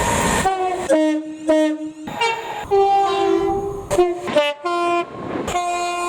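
British train's two-tone air horn sounded in a quick run of short blasts, switching between high and low notes, then settling into a longer held note near the end.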